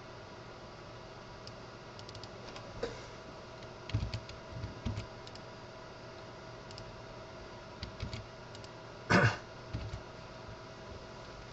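Computer mouse and keyboard clicks, scattered and light, with a few soft low thumps, over a steady faint hum. About nine seconds in comes one short, louder noise that sounds like a throat clearing.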